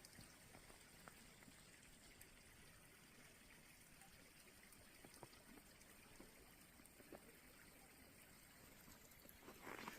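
Very faint, steady trickle of meltwater running down beneath the ice of a frozen waterfall, barely above near silence.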